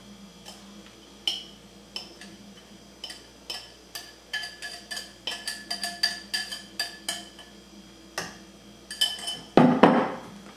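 A spoon scraping and tapping against a glass mixing bowl as batter is scraped out: a long run of quick clinks, each with a brief ringing tone. Near the end comes a louder knock.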